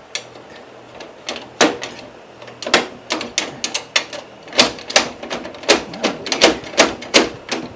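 Hammer blows on the tight steering pinion gear of a John Deere 120 lawn tractor, metal on metal. Scattered strikes at first, then a quick run of a dozen or so blows at about three a second, each with a short ring.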